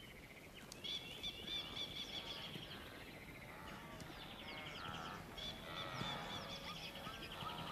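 Several birds calling together: fast repeated high chirps and trills starting about a second in and going on with short breaks, over a faint outdoor background.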